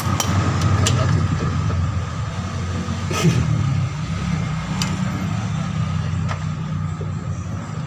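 A steady low engine hum, like a motor idling, with a few sharp light metallic clicks of a screwdriver tip against the engine mount bracket.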